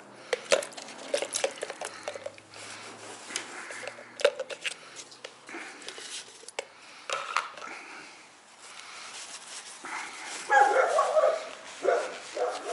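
Light clicks and taps of small objects being handled, then a dog barking a few times about ten seconds in.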